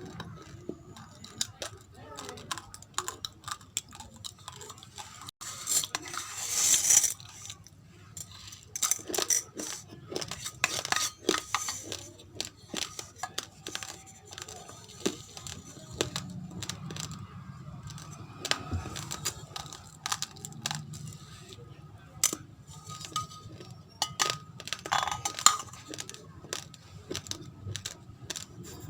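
Raw, uncooked rice grains being crunched and chewed: many short, sharp crunches and crackles, with a louder rustling hiss about six to seven seconds in.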